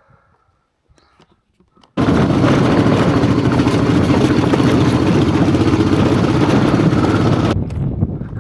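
Honda XRV750 Africa Twin's V-twin engine running steady and loud under way. It cuts in suddenly about two seconds in, after a few faint handling noises, and drops in level near the end.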